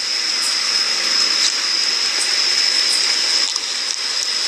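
Steady outdoor background noise picked up by a body-worn camera's microphone: a continuous rushing hiss with a constant high-pitched whine over it and a few faint ticks.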